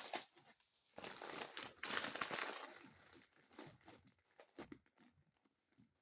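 Packaging crinkling and rustling as unboxed items are handled, loudest about two seconds in, then dying down to faint scattered rustles.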